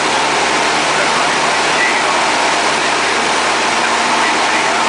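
Steady, loud engine, propeller and wind noise of a small high-wing airplane in flight, heard from inside the cabin.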